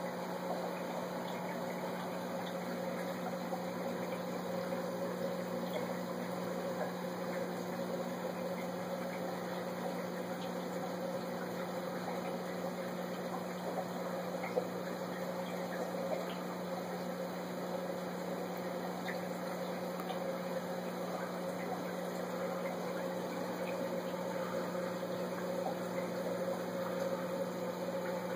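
Aquarium pump running: a steady low hum with a wash of moving water, and a couple of faint clicks about midway.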